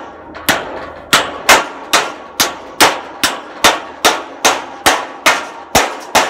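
Hammer driving a nail into a corrugated metal fence board on a wooden post: steady strikes a little over two a second, each with a short metallic ring.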